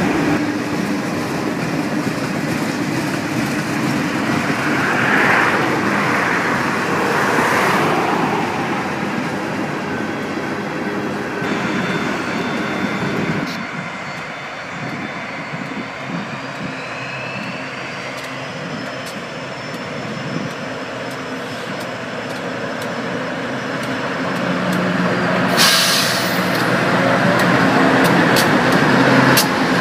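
A freight train's cars rolling past at track speed, wheels rumbling on the rails. Then the sound cuts to a train led by Union Pacific AC44CW and SD70M diesel locomotives approaching, their engines growing louder as they come by near the end.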